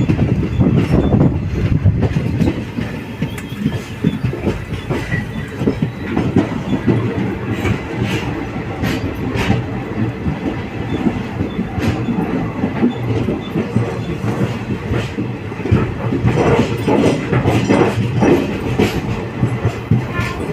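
Passenger train running on the rails: a steady rumble of the wheels with rhythmic clacking over the rail joints and scattered sharp clicks.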